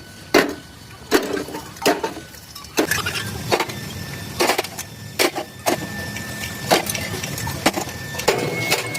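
Irregular sharp knocks and clanks, about a dozen spread unevenly, as of metal parts or tools being struck or handled.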